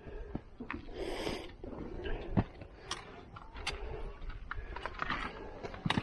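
Hiker's footsteps on a rocky mountain trail: irregular knocks and clicks of boots on rock, with a brief scrape about a second in.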